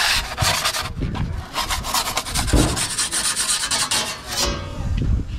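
Metal pizza peel scraping and rubbing across the baking stone of an Ooni pizza oven as it is jerked back and forth to slide a pizza off, a rapid run of rasping strokes that stops near the end.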